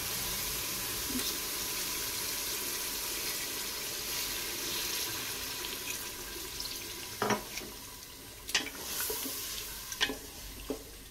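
Water poured from a glass into a hot pressure-cooker pot of fried beef masala, a steady rush for about seven seconds. Then a wooden spatula stirs, knocking against the metal pot a few times.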